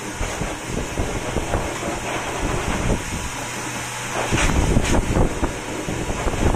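Pet grooming dryer blowing air through its hose: a steady rushing noise with a low hum, turning into a louder low buffeting rush from about four seconds in.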